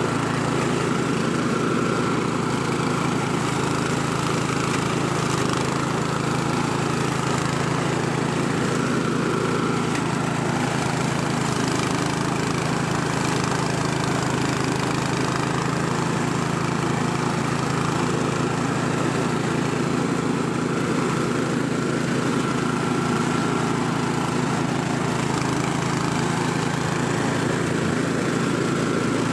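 Senci 7.5 hp single-cylinder four-stroke petrol engine on a push lawn mower running steadily at a constant speed while mowing grass.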